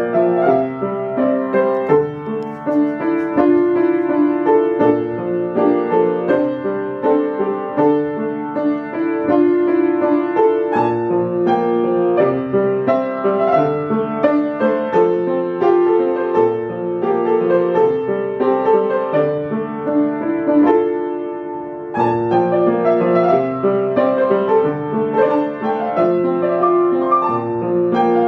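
Piano being played: a continuous run of chords under a melody line, with a brief lull about three quarters of the way through before the playing comes back in strongly.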